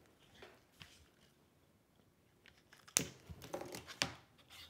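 Small clicks and rustling from hands working a crossover board with an air-core inductor zip-tied to it, with a cluster of sharper clicks about three to four and a half seconds in.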